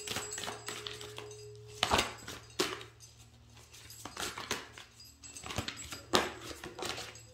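Tarot cards being handled and laid down on a table: about half a dozen sharp, separate taps and clicks.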